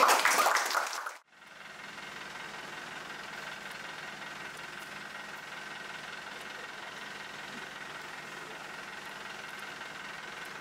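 Steady low hum of a parked coach bus's engine idling, with a light hiss, after a brief loud burst that cuts off about a second in.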